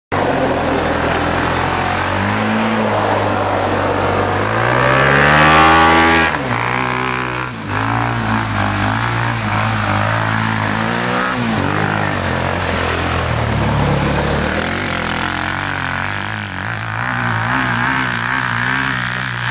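A vehicle engine running while driving. It revs up to a peak about five to six seconds in, drops back, then rises and falls several more times.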